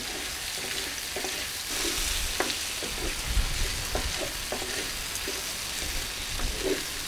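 Diced potatoes, bratwurst pieces and bacon sizzling in a large cast-iron pan, with the light knocks and scrapes of a wooden spatula stirring them now and then.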